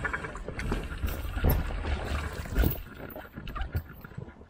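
Anchor rope being hauled in on an aluminium-framed fishing raft, with a few knocks and rubbing of gear against the frame over a low rumble.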